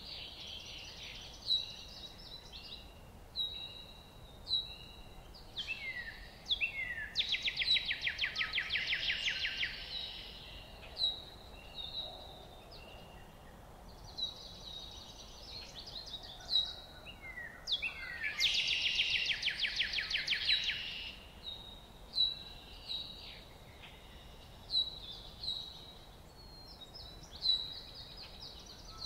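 Songbirds singing: one repeats a rapid, even trill lasting two to three seconds, about every ten seconds, while others give short high chirps and down-slurred notes in between.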